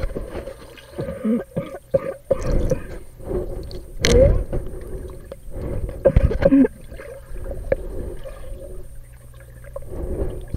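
Muffled underwater sound of a swimming pool picked up by a waterproof camera held below the surface: gurgling, sloshing water with knocks and thumps against the camera. The loudest surges come about four seconds in and again around six seconds, over a steady low hum.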